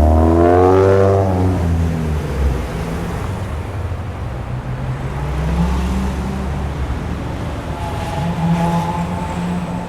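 Street traffic: a car engine accelerates with a rising pitch in the first second, then settles into a steady low engine rumble. Another engine note comes in about eight seconds in.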